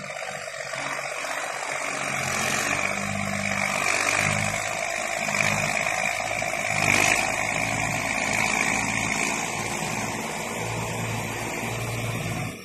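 New Holland T6050 tractor's diesel engine running under load as its front blade shoves a heap of crushed stone, with a steady hiss of scraping gravel over the engine note. The sound drops away sharply near the end.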